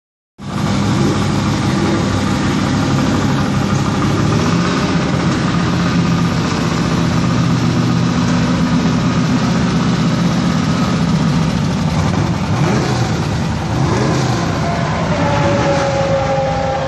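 Ford GT40's V8 engine running loudly at idle, with a brief rise and fall in revs about twelve seconds in.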